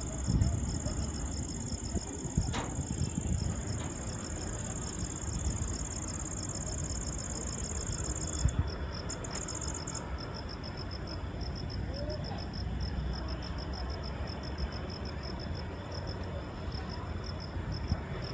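Crickets chirping at night: a steady high trill that stops about halfway through, over rapid, evenly repeated chirps that carry on, with a low rumble underneath.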